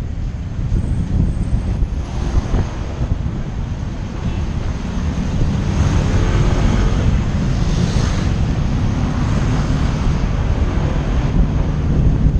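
Wind buffeting the microphone of a moving vehicle, a loud, steady low rumble with an engine drone beneath it.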